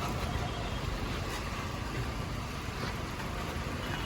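Maruti WagonR engine idling steadily while misfiring, the fault blamed on a dirty throttle body.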